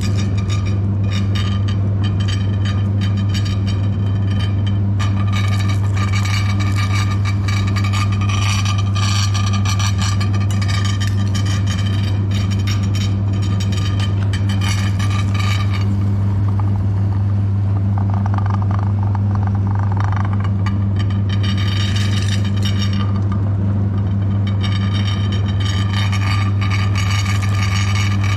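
Meat grinder motor running with a steady low hum while it grinds a chocolate bar, with stretches of crackling, crunching grinding that come and go over the hum.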